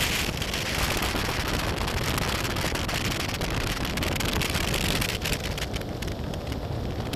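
Wind rushing over the microphone of a BMW F800GS motorcycle under way, mixed with the bike's running noise.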